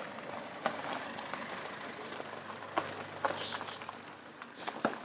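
Opel compact SUV driving slowly past on a dirt track: tyres rolling over the dirt and a low engine hum, dying away near the end. Footsteps on the dirt tick along with it.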